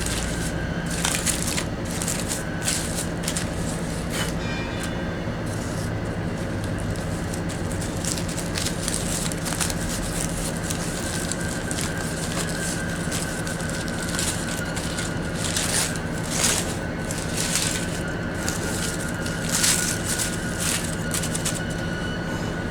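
Aluminium foil crinkling and crackling in irregular bursts as the foil-wrapped roast chicken is handled and unwrapped, over a steady low hum.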